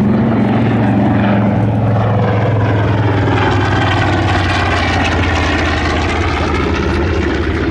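Large radial piston engine of a WWII US Navy bomber running loud and steady with a deep drone, its pitch shifting slightly as the plane moves.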